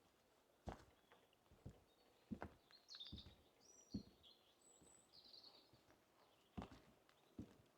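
Faint footsteps of a walker on a forest path, about one a second at uneven spacing, with small birds chirping in short high notes around the middle.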